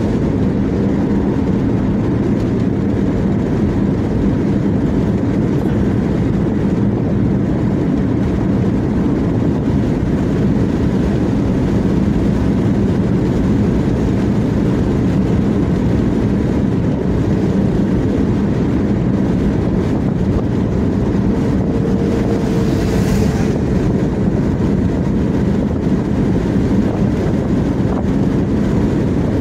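Road noise of a car cruising at highway speed, heard inside the cabin: a steady drone of tyres and engine. About 23 seconds in, a brief rush of higher noise swells and fades.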